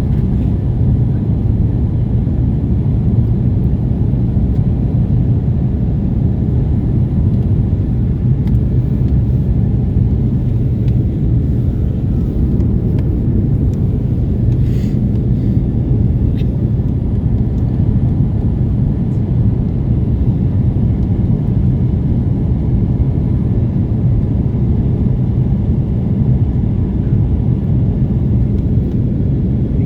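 Steady low rumble inside an airliner cabin in flight: engine and airflow noise at a constant level.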